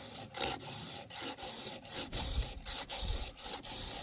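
Hand file sharpening the cutters of a Dolmar 7300 chainsaw chain: short, even rasping strokes, about one every two-thirds of a second.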